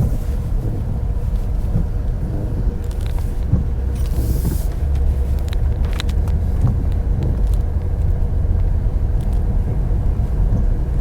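A car being driven, heard from inside: a steady low rumble of engine and tyres on the road, with a brief hiss about four seconds in and a few light clicks.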